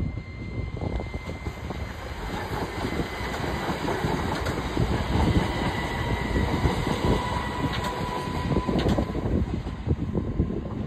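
Class 377 Electrostar electric multiple unit passing close by. A steady rumble of wheels on rail, loudest around the middle as the coaches go past, with sharp clicks from wheels crossing rail joints and faint thin whines.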